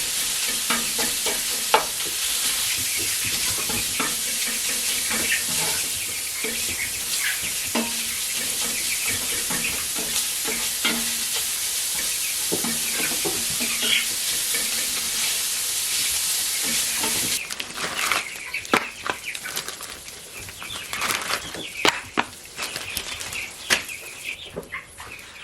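Leftover taco filling sizzling as it reheats in a frying pan, with the utensil clicking against the pan as it is stirred. About 17 seconds in the sizzling stops abruptly, giving way to quieter scattered taps and rustling with chicken sounds.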